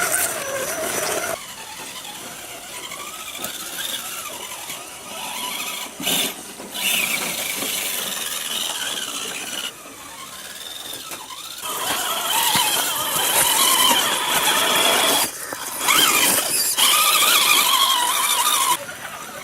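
Electric motor and gear drivetrain of an RC scale rock crawler whining under throttle, rising and falling and stopping and starting several times, louder in the second half.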